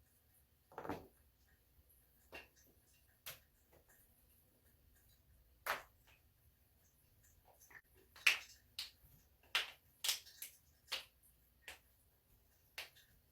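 Joints cracking and popping: about a dozen short, separate pops at irregular intervals, coming closest together in the last third.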